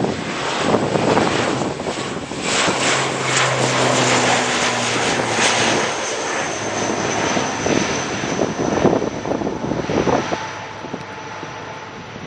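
ATR 72-600's twin Pratt & Whitney PW127M turboprops at takeoff power, a loud propeller drone with a faint high whine, through the takeoff roll, lift-off and initial climb. The sound eases off near the end as the aircraft climbs away.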